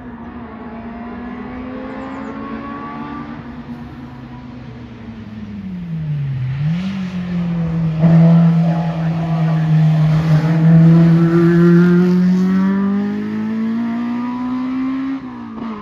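VW Polo hillclimb race car's engine pulling hard. The revs climb slowly, dip sharply about six seconds in, then climb again as the car gets louder and closer. The sound cuts off abruptly just before the end.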